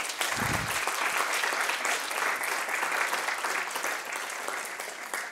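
Audience applauding: many hands clapping together, starting all at once and beginning to thin out near the end.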